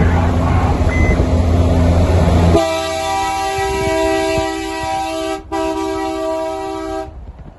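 Heavy truck's diesel engine running with a loud deep drone; about two and a half seconds in, a multi-tone truck air horn takes over, sounding one steady chord for about four and a half seconds with one brief gap before cutting off.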